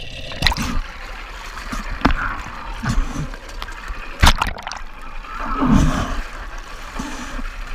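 Seawater splashing, sloshing and gurgling around a camera at the surface beside a boat's dive ladder as a diver climbs out, with a few sharp knocks.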